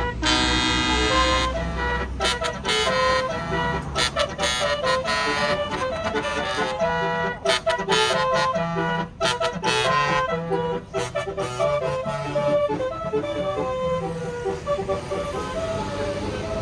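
Tour bus's Basuri telolet horn, a multi-tone electric horn, playing a melody: a loud blaring chord for about the first second and a half, then a quick run of changing notes.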